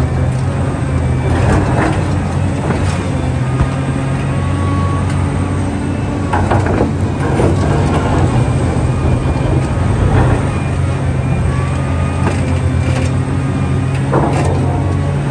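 Diesel engine of a heavy earthmoving machine running steadily at a constant pitch, with a few short metallic knocks and scrapes from the machine working.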